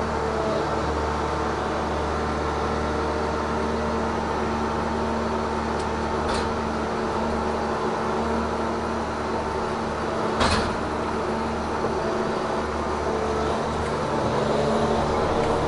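Tigercat 1075B forwarder's diesel engine and crane hydraulics running steadily, heard from inside the cab, with a steady hum. A sharp knock comes about ten seconds in and a lighter click around six seconds, and the sound grows a little louder near the end.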